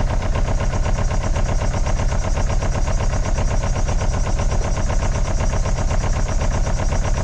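A Citroën camper van's diesel engine being cranked by its starter motor, turning over with a fast, even chug without firing. The owner is trying to get the diesel fuel to come up so it will catch.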